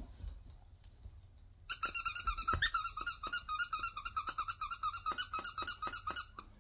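Plush dog toy's squeaker squeezed over and over: a quick run of short, same-pitched squeaks, several a second, starting about a second and a half in and stopping near the end.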